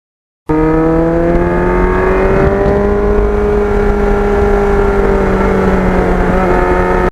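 Kawasaki GPX750R's inline-four engine pulling under way. Its pitch climbs over the first couple of seconds, holds steady, then eases slightly near the end. The sound starts abruptly about half a second in.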